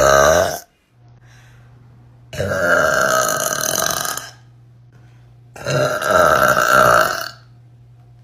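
A person's long, loud burps: one ending about half a second in, then two more lasting about two seconds each. A low steady hum sits between them.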